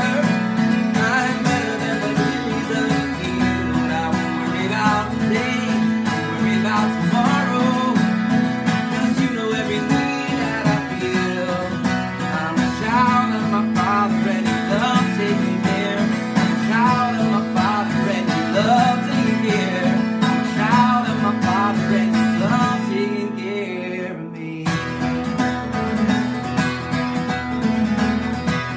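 Acoustic guitar in DADGAD open tuning being played, with many notes ringing together over a steady low drone. About 23 seconds in the sound briefly thins and drops, then the playing picks up again.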